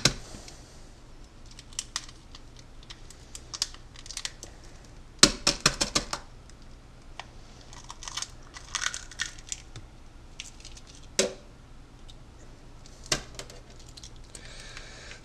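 Unhatched goose eggs' thick shells being broken open by hand over a stainless-steel sink. A quick run of sharp cracks comes about five seconds in, then crackling as a shell is pulled apart with the fingers, and a few single clicks of shell pieces.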